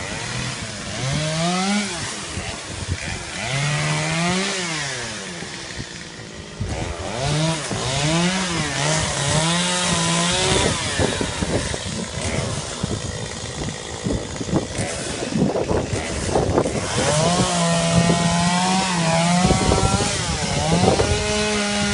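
Chainsaw engine revving up and down repeatedly, its pitch climbing and dropping with each blip of the throttle. There is a rougher, uneven stretch in the middle, and near the end the saw is held at a high, steady speed.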